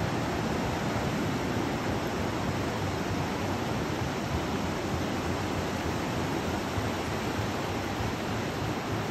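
Ocean surf breaking on a beach, a steady even rush of water noise.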